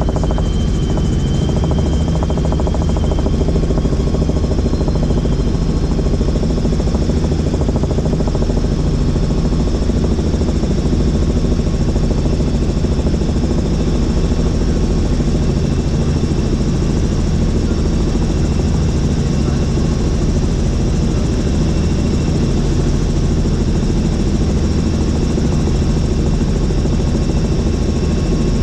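Helicopter in flight, heard from inside the cabin: a steady, unbroken drone of rotor and engine with a thin high whine over it.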